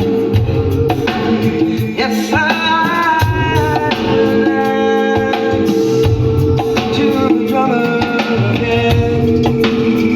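A song with singing, drums and sustained keyboard notes, played back on a car audio system during a sound test.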